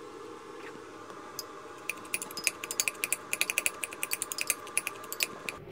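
A metal spoon clicking and scraping against a cup in quick, irregular strokes, stirring chopped onion and garlic. The clicks begin about two seconds in and stop shortly before the end.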